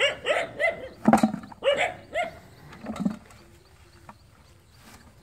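A dog barking in a quick run of short, pitched barks, a couple of them deeper, that stop after about three seconds.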